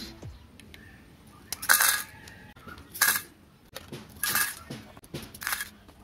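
Sharp metallic clinks, about five of them roughly a second apart, of a small scoop knocking on a thin tin-can mixing drum as dry material is tipped in.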